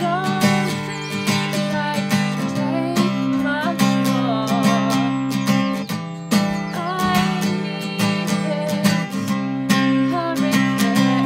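Steel-string acoustic guitar being strummed, chords ringing on with steady, regular strokes.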